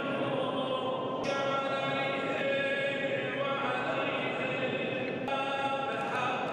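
Muslim worshippers chanting during Eid prayers, long held melodic phrases with breaks in the phrasing about a second in and again near the end.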